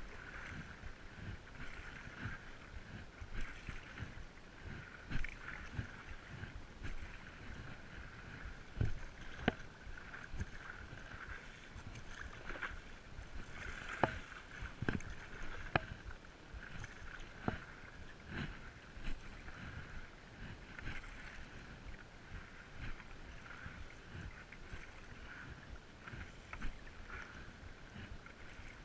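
Stand-up paddleboard paddling at sea: paddle strokes and water splashing and lapping against the board, with a few sharp knocks along the way.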